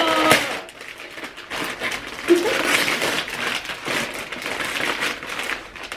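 Wrapping paper rustling and tearing as a gift is unwrapped, with a brief voice sound about two seconds in.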